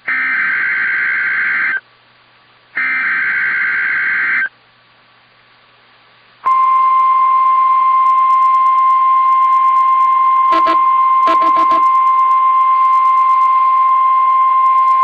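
NOAA Weather Radio Emergency Alert System signals: two harsh, screeching digital data bursts of the SAME header, each just under two seconds with a one-second gap. After a pause of about two seconds comes the 1050 Hz warning alarm tone, a single steady loud tone held for about nine seconds, with a couple of brief crackles of interference near its middle.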